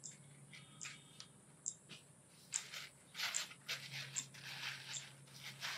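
Faint scattered light clicks and a few short rustles, from things being handled, over a low steady hum.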